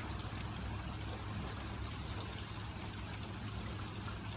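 Heavy rain falling steadily, with water pouring and trickling as runoff, over a steady low rumble.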